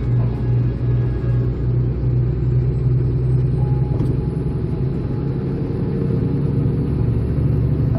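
Steady low drone of a semi-truck's engine and tyres heard from inside the cab while driving at speed.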